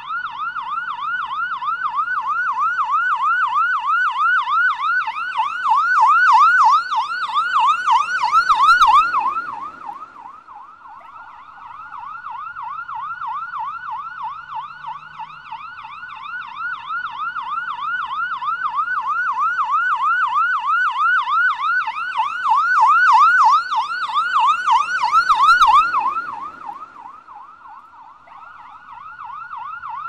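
Police siren in a rapid rising-and-falling yelp, swelling louder twice and dropping away sharply about nine seconds in and again near the end.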